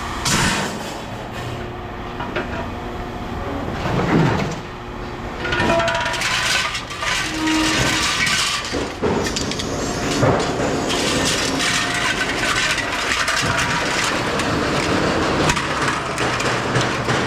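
Pieces of scrap metal being thrown onto a pile while unloading at a scrap yard, with repeated clanking and clattering and brief ringing from struck metal.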